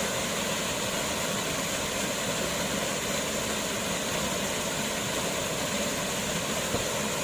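A waterfall's steady, unbroken rush of falling water.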